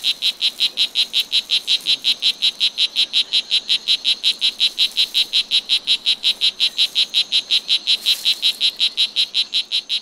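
Male strawberry poison dart frog giving its advertisement call to attract a female: a long, steady series of short, high-pitched chirps, about five to six a second, that stops near the end.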